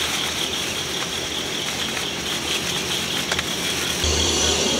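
Steady outdoor background hiss with a faint high steady hum, broken by a few light clicks and knocks of camp-kitchen things being handled.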